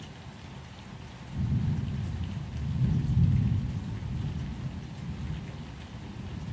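Steady rain, with a low rumble of thunder that swells about a second and a half in, is loudest around three seconds, then slowly dies down.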